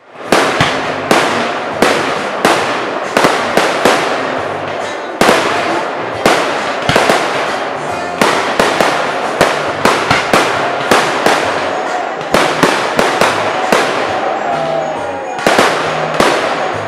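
Fireworks display: aerial shells bursting in quick succession, sharp echoing bangs about twice a second.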